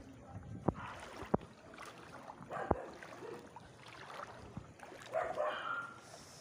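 Floodwater sloshing with a few sharp splashes, as someone wades through a flooded street. A faint call is heard about five seconds in.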